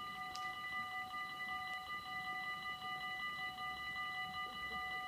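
Dutch railway level-crossing warning bells ringing steadily with a rapid, even clang at an automatic half-barrier (AHOB) crossing, the signal that the crossing is closed for an approaching train.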